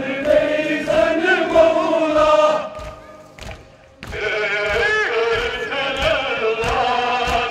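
A crowd of male mourners chanting a Kashmiri noha in unison, with rhythmic chest-beating (matam) thumps about twice a second. The chanting breaks off for about a second midway, then resumes.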